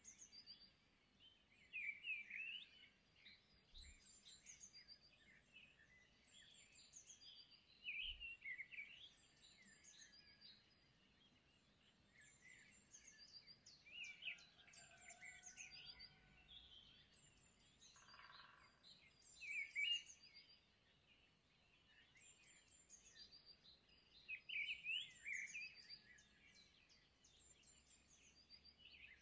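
Faint birds chirping, with many short calls repeating throughout.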